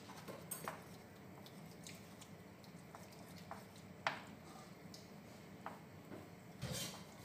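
Wooden spatula stirring spaghetti in a nonstick frying pan: faint, scattered scrapes and light taps, with a sharper knock about four seconds in and a louder rustle near the end.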